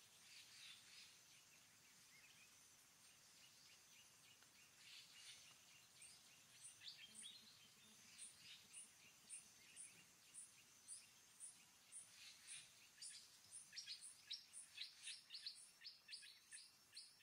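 Faint forest ambience of wild bird calls, with a high chirp repeating about twice a second from about six seconds in; the calls grow busier and louder in the last few seconds.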